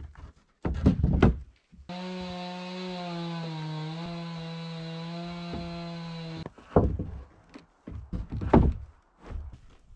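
Rough-sawn wooden boards knocked and shifted into place against a wall, with loud wooden thumps about a second in. A cordless drill then runs steadily for about four and a half seconds, its pitch dipping slightly partway through, and stops abruptly, followed by more wooden knocks.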